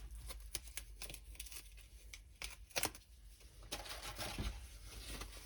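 Faint rustling and scattered light clicks as a rolled diamond painting canvas on a foam roller and its wrapping are handled, with one sharper crackle about three seconds in.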